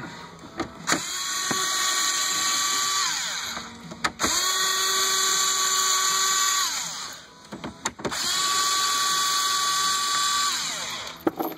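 Small cordless electric screwdriver running three times for about two and a half seconds each, backing out 7 mm dashboard trim screws. Its steady whine winds down at the end of each run, with a few sharp clicks in between.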